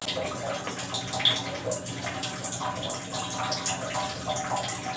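Fish curry simmering in a pan on a gas stove, bubbling steadily with many small pops and a few light clicks.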